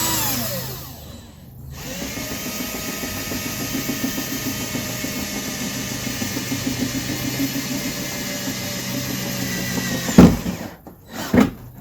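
Power drill boring a screw hole through the car door's inner panel for the speaker mount: a short whir that winds down at the start, then the drill running steadily for about eight seconds before winding down. Two sharp knocks follow near the end.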